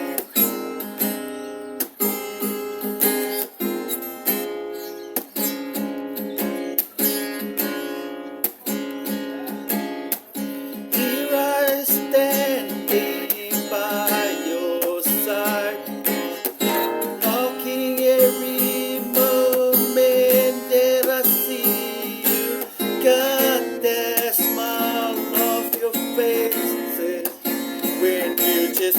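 Acoustic guitar strumming chords in a steady rhythm, an instrumental stretch of a song. About eleven seconds in, a bending melody line joins over the strumming.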